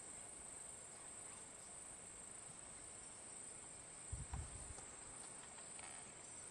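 Faint, steady high-pitched insect chirring, like crickets, with a brief low rumble about four seconds in.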